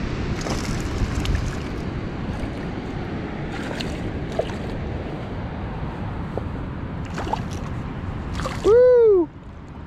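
A hooked smallmouth bass splashing and thrashing in shallow water as it is landed, over a steady rush of water noise. Near the end comes a short, loud human cry that rises and falls in pitch.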